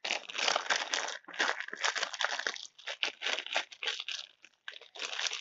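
Clear plastic bag crinkling as a lump of slime is squeezed and worked inside it by hand, in quick, irregular rustles with short pauses.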